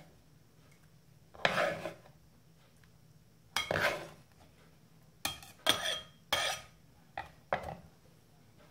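Kitchen knife scraping and knocking on a wooden chopping board as chopped iceberg lettuce is cleared off it: several separate strokes about a second apart, a few with a brief metallic ring.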